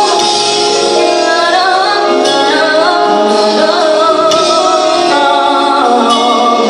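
Live Christian worship music: a woman singing sustained, wavering notes over the band's accompaniment.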